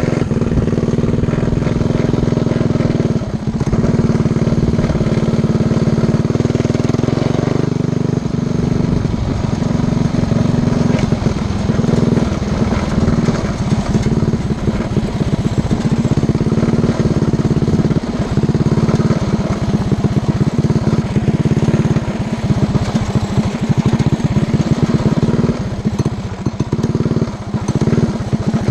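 Predator 212 Hemi single-cylinder four-stroke engine on a Coleman CT100U mini bike, running under way at a fairly steady throttle. There are a few brief dips in the engine note.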